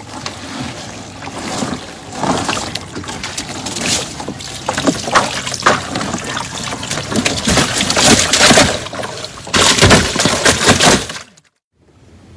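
Wet cast net being hauled out of a river into a boat, water pouring, splashing and dripping off the mesh in loud irregular surges close by. The sound breaks off abruptly near the end.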